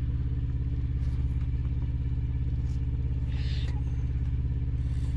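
Diesel engine idling steadily with an even, fast low throb. A brief faint hiss comes about three and a half seconds in.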